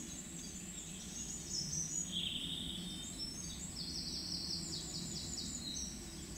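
Small songbirds singing: a few high trills and, from about the middle, a quick run of repeated notes, over a steady low background noise.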